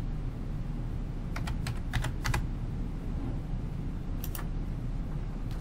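Keystrokes on a computer keyboard typing a short password: a quick cluster of key clicks about a second and a half in, then two more clicks around four seconds in, over a low steady hum.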